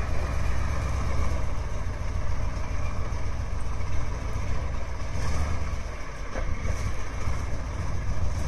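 KamAZ six-wheel-drive truck's V8 diesel engine running steadily at low revs as the truck crawls through meltwater.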